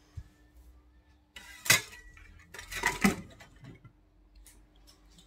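Ceramic dishes clattering as a plate is taken out and knocked against other crockery, with a sharp clink about a second and a half in and a second cluster of clatters around three seconds.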